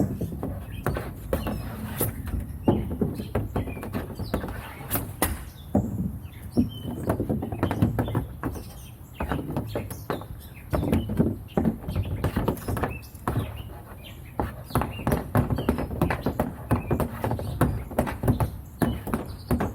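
Hockey stick and pucks clacking on plastic shooting tiles during wrist-shot practice: many short, sharp clacks and knocks at an irregular pace, over a steady low rumble.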